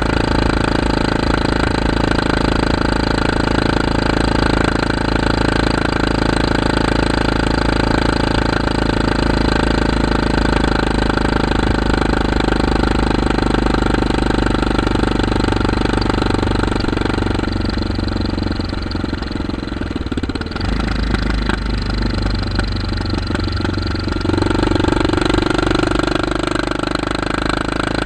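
2008 Kawasaki KLR650's single-cylinder engine running through an aftermarket slip-on muffler, a deeper, louder, dirt-bike-like note than the stock exhaust. It holds a steady speed for most of the time, then its pitch shifts about two-thirds of the way through before it settles again.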